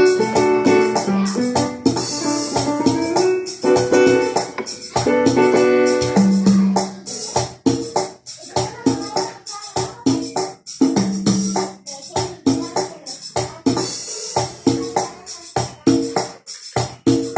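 Cumbia loop playing on a Roland XP-30 synthesizer: steady shaker and tambourine percussion over keyboard chords and bass. The chords thin out about halfway through, leaving mostly percussion with short bass notes.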